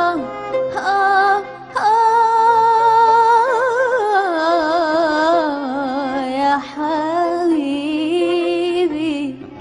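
A woman singing a long wordless melismatic passage in Arabic tarab style: long held notes with wide vibrato, rising to a higher note about two seconds in and sinking lower after about four seconds, with short breaths between phrases.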